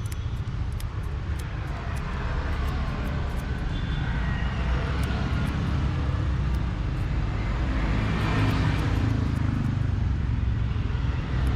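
Street traffic: a steady low rumble with a vehicle passing by, swelling to its loudest about eight seconds in and then fading.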